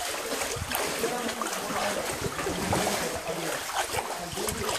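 Shallow stream water running and splashing over a rocky gorge floor, with irregular wading steps through it.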